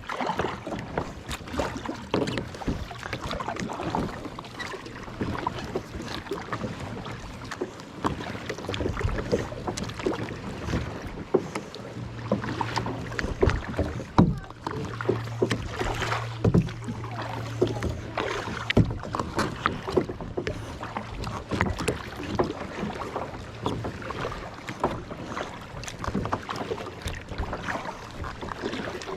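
Irregular knocking, clicking and rustling of someone moving about and handling gear in a small fishing boat, heard close on a body-strapped GoPro. A low steady hum comes and goes, strongest in the middle.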